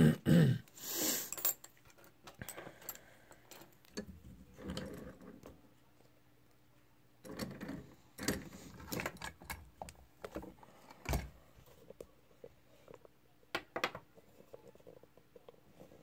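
Metal clicks and rattles of a just-picked American Lock 1100 padlock and lock picks being handled and taken out of a vise, with a sharp thump about eleven seconds in.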